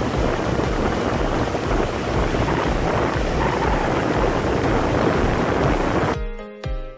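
Wind buffeting the microphone over rushing water on a moving boat at sea. The sound cuts off abruptly about six seconds in, and music with a steady beat takes over.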